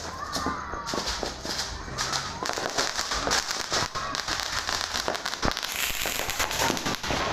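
Fireworks going off in a dense run of bangs and crackling, thickening into a continuous crackle about a second in.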